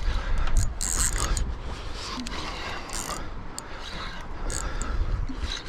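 Fishing reel being wound in with a mechanical clicking grind while a fish is fought on the line, over a steady low rumble.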